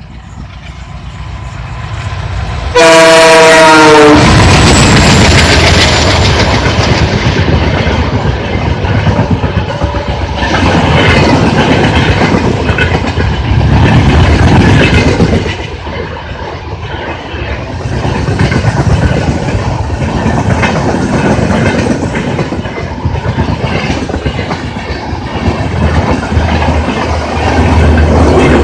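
A pair of Alco-design diesel locomotives, a WDG 3A and a WDM 3A, hauling an express past at speed: their sound builds as they approach, a loud horn blast of just over a second comes about three seconds in, then the coaches rush by with a rhythmic clickety-clack of wheels over the rail joints. A low steady hum comes in near the end.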